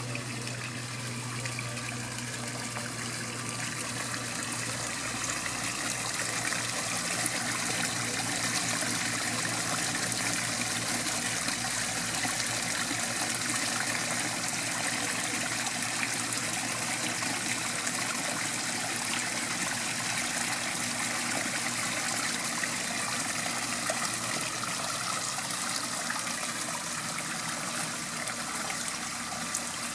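Small backyard pond waterfall, water trickling and splashing steadily over rocks into the pool. It grows a little louder several seconds in.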